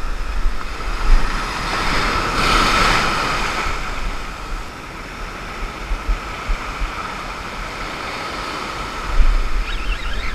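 Ocean surf breaking and washing up the beach, one wave swelling louder about two seconds in, with wind gusting on the microphone.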